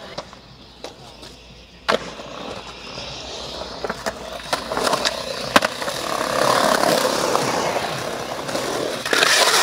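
Skateboard wheels rolling on concrete, with sharp clacks of the board hitting the ground: one about two seconds in and several more around the middle. The rolling grows louder toward the end.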